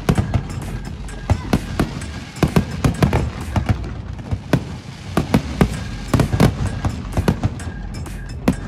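A rapid, irregular run of sharp pops and bangs, several a second, with music underneath.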